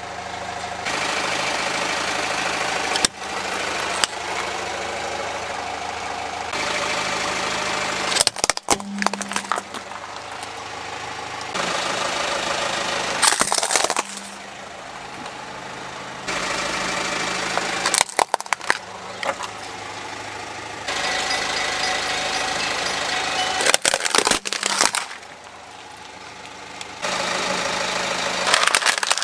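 Car engine idling as a tyre rolls slowly onto small plastic objects on pavement, with sharp cracks and crunches as they are crushed. The steady engine sound changes abruptly every few seconds, as short clips are spliced together.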